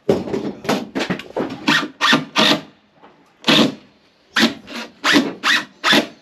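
Wood rubbing and scraping in short, irregular strokes, about two or three a second with a few pauses, as plywood boards are worked against each other.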